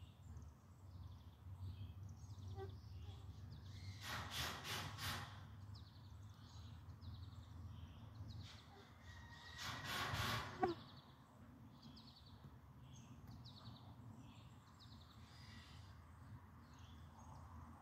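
Small birds chirping on and off over a low steady hum, with two louder, harsh noisy sounds of about a second each, about four seconds in and about ten seconds in.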